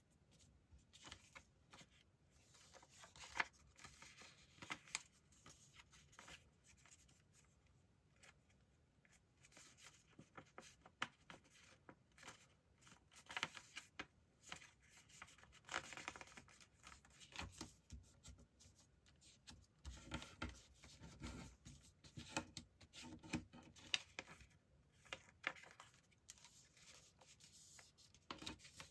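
A sheet of A4 paper being folded by hand into a paper airplane: faint, irregular rustling and crinkling, with short sharper swipes as fingers press and run along the creases against a wooden tabletop.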